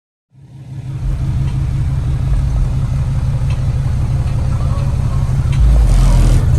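Six JL Audio 13TW5 13-inch subwoofers, driven by a Crescendo 4K amplifier, playing loud deep bass that fades in about a third of a second in, with a very heavy low note near the end.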